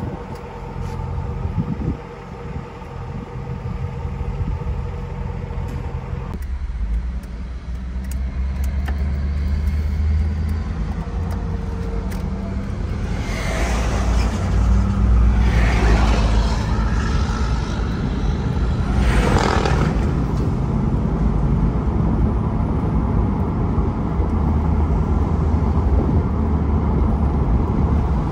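A 2002 Chevrolet Camaro Z28's LS1 5.7-litre V8 idles steadily at the exhaust tips. After about six seconds the sound switches to a heavier low rumble from inside the cabin as the car drives along, with engine and road noise. Traffic sweeps past three times in the middle stretch.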